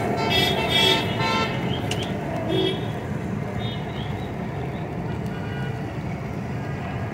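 Vehicle horns toot several short times in the first three seconds over a steady din of street traffic, with deep-frying oil sizzling in a large wok.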